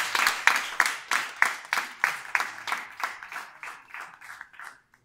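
Small audience applauding, a few pairs of hands clapping close by; the clapping thins out and dies away near the end.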